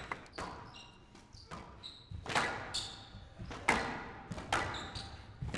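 Squash rally: the ball struck by rackets and smacking off the court walls about once a second, with short high squeaks of players' shoes on the court floor.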